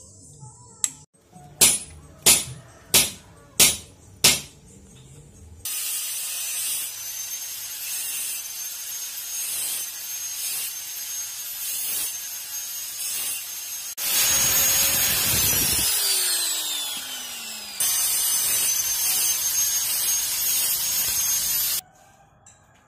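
Five sharp metallic knocks, then a power tool running steadily with a high whine, its pitch falling for a few seconds partway through.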